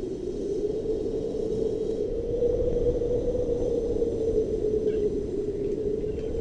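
A steady droning hum that wavers slightly in pitch, over a low rumble.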